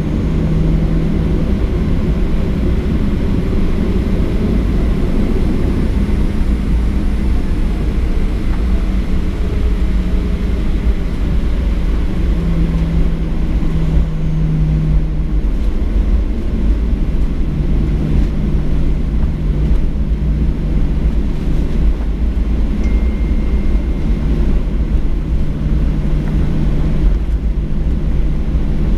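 Boeing 737-800's CFM56-7B jet engines running at taxi power as the airliner rolls along the taxiway, heard from inside the cabin: a steady low rumble with a low hum that shifts slightly in pitch.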